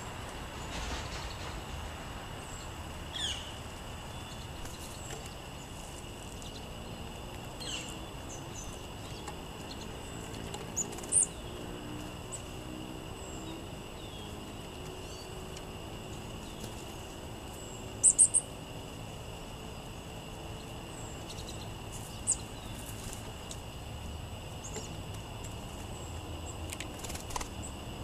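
Small songbirds giving brief, high chirps and call notes every few seconds over steady background noise; the loudest is a quick run of three sharp notes about two-thirds of the way through.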